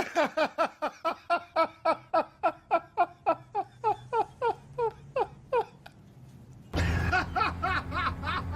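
A person laughing in a long run of rhythmic 'ha-ha' pulses, about three or four a second, trailing off after five seconds or so; after a brief pause, another burst of laughter starts over a steady low hum.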